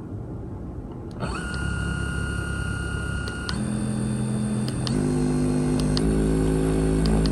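Slimpal mini percussion massage gun switched on and stepped up through its speed settings: its motor hum jumps higher and louder three times, then cuts off sharply as it is switched off.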